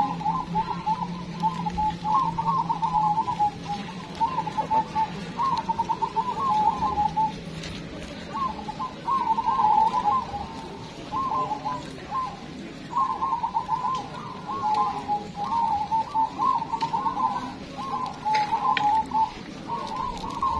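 Many caged zebra doves (perkutut) cooing at once, their trilling calls overlapping in a continuous chorus. A low steady hum underneath fades out about eight seconds in.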